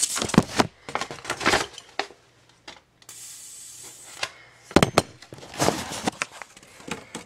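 Paper and a lighter being handled: rustling of a sheet of paper and small clicks and knocks, with a steady hiss lasting about a second roughly three seconds in.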